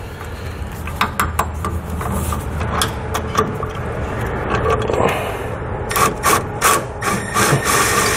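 Ratchet wrench with a 10 mm socket tightening hex bolts on a steel mounting bracket: rasping ratchet scraping, with sharp clicks that come thickest near the end.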